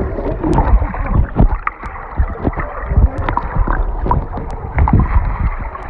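Muffled underwater bubbling and churning of pool water, with irregular low thumps, heard through a phone held under the surface.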